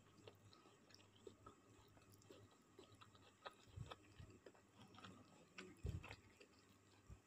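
Faint chewing of a mouthful of rice and meat, with scattered soft mouth clicks and a few low thumps in the second half.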